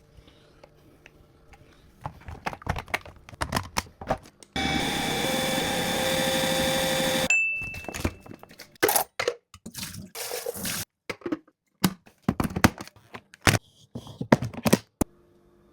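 Wet-and-dry floor-washing vacuum: handling clicks and knocks, then its motor runs steadily for about three seconds and cuts off sharply, followed by a single short beep. More knocks and brief rushes of noise follow.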